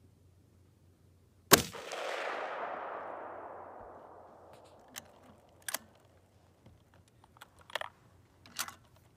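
A single rifle shot from a scoped Ruger M77 bolt-action rifle, its report rolling away in a long echo that fades over about three seconds. Then a series of short metallic clicks and clacks as the bolt is worked to eject the case and chamber the next round.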